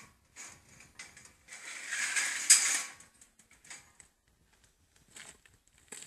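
Wire-mesh metal bait compartment scraping and clanking as it is fitted onto the end of a homemade steel box trap, ending in one sharp metallic knock as it seats, followed by a few faint clicks.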